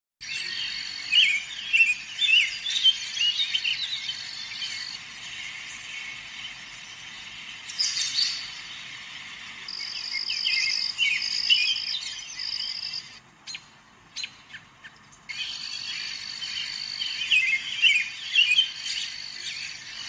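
European robin singing in quick, warbling phrases, over a steady high thin tone. The song breaks off for about two seconds with a few clicks, then starts again.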